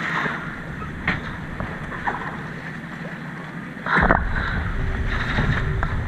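Wind on the microphone and water rushing past a sailboat under sail. About four seconds in, the low wind rumble suddenly grows louder, with a brief sharp sound as it begins.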